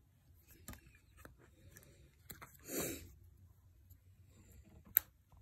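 Faint handling of a paper mailer envelope: scattered small clicks and rustles, a brief louder sound nearly three seconds in, and a sharp click about five seconds in.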